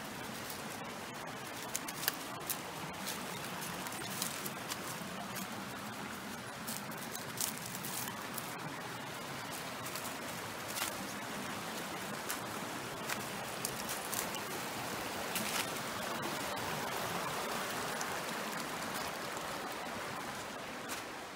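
A mountain stream running steadily, with scattered sharp clicks over the rush of water.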